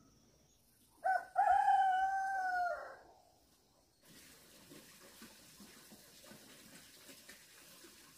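A rooster crowing once, about a second in: a short opening note, then a long held call that falls away at the end.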